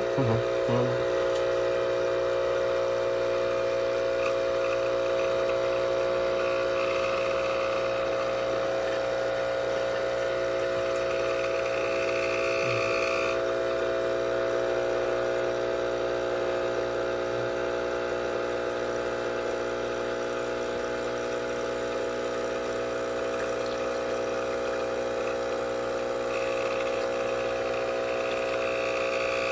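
ChefWave Káva capsule espresso machine's pump running steadily as it brews a large cup, a continuous buzzing hum, with a higher tone swelling briefly twice.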